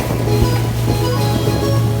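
Background music: held chords over a steady bass note.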